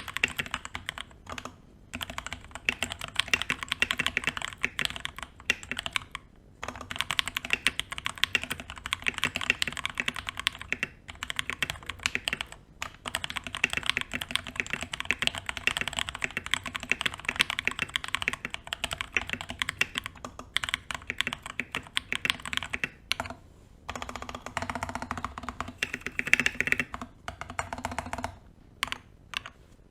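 Continuous fast typing on a mechanical keyboard with JWK (Jwick) Tactile T1 switches, each keystroke a short click, broken by brief pauses. The board is foam-dampened with lubed stabilizers. Near the end the typing slows to a few separate, heavier keystrokes.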